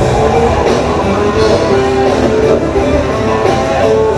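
Rock music with guitar playing at a steady loud level.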